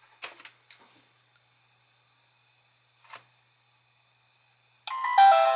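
Dash cam mirror's small built-in speaker playing a short electronic tone sequence that steps down in pitch near the end, its power-off sound after the USB power is pulled. Before it there is near silence with a faint knock about three seconds in.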